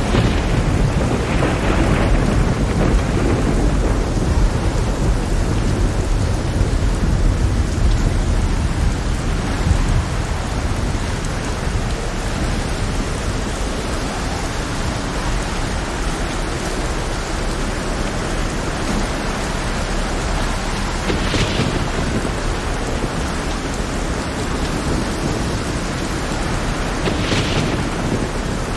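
Heavy rain with a deep rumble of thunder that is strongest in the first ten seconds and then eases. Two short high hissing surges come about two-thirds of the way through and again near the end.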